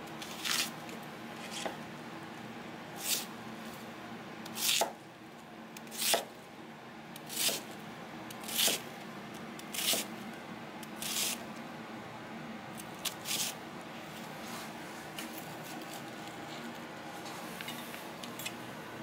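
Large kitchen knife slicing through peeled onion halves on a plastic cutting board: a short, crisp crunch with each slow cut, about one every second and a half, stopping a little past two-thirds of the way through. A steady low hum runs underneath.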